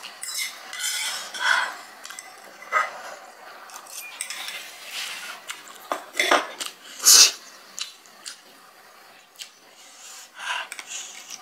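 Close-miked eating sounds: a metal fork clicking and scraping on a small plate, with chewing of spicy instant noodles. The clicks and smacks come at irregular moments, the loudest about seven seconds in.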